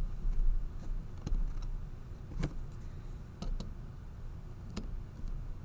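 Scattered small metal clicks and taps of brass padlock parts (levers, spring and bolt) being fitted back into a warded lever padlock's case by hand, over a low rumble of handling.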